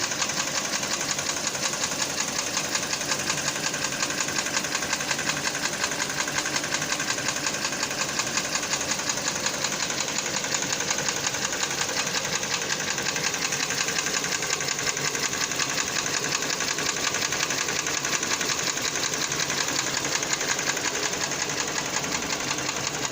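Kia Cerato 2-litre engine running with a fast, steady, even knock that keeps time with the engine: the engine is knocking.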